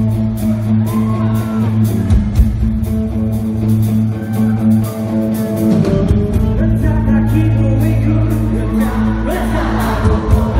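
Live rock band playing loudly: electric guitars, bass and a steady drum beat, with a singer over them.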